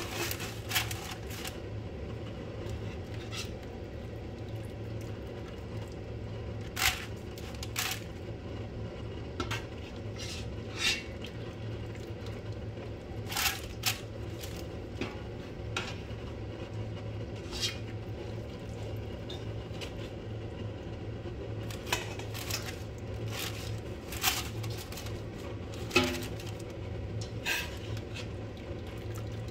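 Metal ladle clinking and knocking against stainless steel pots now and then as chicken pieces in sauce are spooned from one pot into another, paper-lined one, over a steady low hum.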